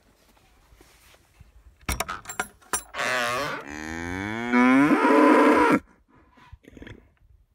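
A cow mooing at close range: one long moo of nearly three seconds that drops in pitch, then swells louder before cutting off. A few sharp clicks come just before it.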